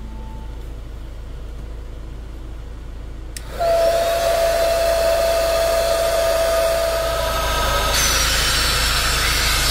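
Small electric air pump switching on with a click about three and a half seconds in, then running with a steady whine and rush of air as it inflates the air-foam mat. The air noise turns brighter and hissier near the end.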